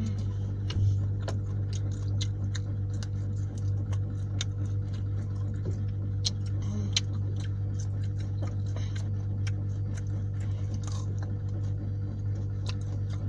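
Close-up eating sounds: chewing and biting with many small irregular mouth clicks, over a steady low hum.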